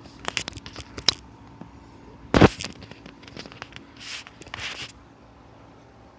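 Rustling and handling noise: quick clicks and scrapes, one loud thump about two and a half seconds in, then two soft rustles.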